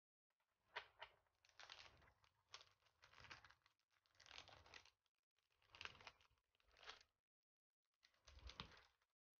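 Faint crinkling of plastic packaging being handled, in a series of short bursts about a second apart, with a soft low bump near the end.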